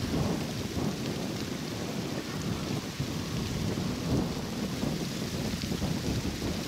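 Wind buffeting the microphone: a continuous, uneven low rumble with a fainter hiss above it.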